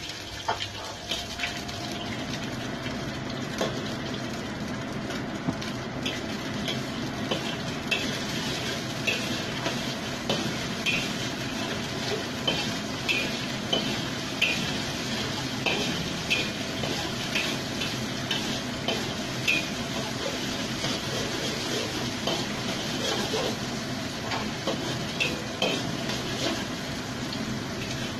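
An egg frying and sizzling in oil in a wok while a metal spatula scrapes and taps against the wok again and again to scramble it.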